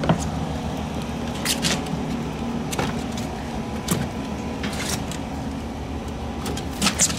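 Steady low mechanical hum with a few sharp knocks and clatters, spread through, as a slatted metal trash can is handled and moved.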